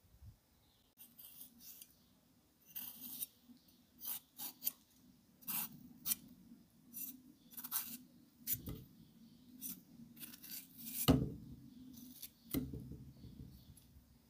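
Chef's knife slicing small peppers on a wooden cutting board: about a dozen crisp cuts, each ending in a tap of the blade on the board, with the loudest knock about eleven seconds in.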